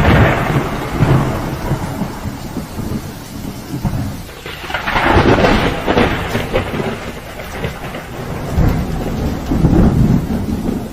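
Deep rumbling over a continuous rushing noise, swelling loud three times: at the start, about halfway through and near the end.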